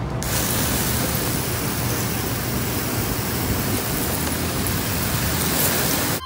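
Steady hiss of water spraying, with a German Shepherd puppy jumping at the spray.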